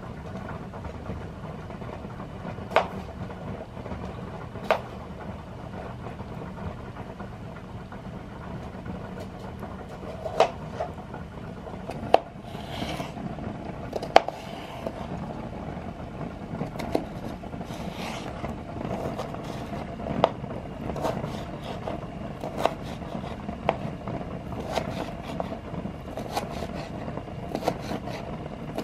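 Kitchen knife cutting cucumber on a plastic cutting board: a few spaced sharp knocks at first, then a steadier run of chops about one a second in the second half, over a low steady hum in the background.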